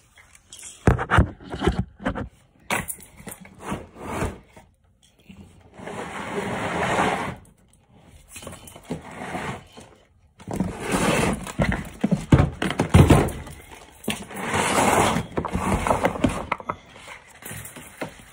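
Handling noises: irregular rustling, scraping and knocking as things are moved about, with several longer stretches of scraping and rustling.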